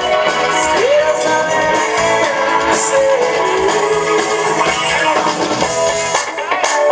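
Live rock band playing: a lead singer holding and bending long notes over electric guitars, bass and drums.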